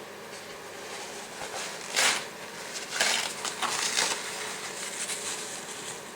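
Rustling, crinkling handling noises: a short burst about two seconds in and a longer stretch of them from about three to four seconds in.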